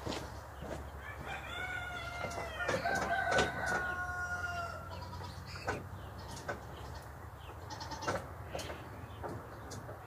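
A long, drawn-out animal call starting about a second in and lasting nearly four seconds, held and falling slightly in pitch, followed by scattered light knocks.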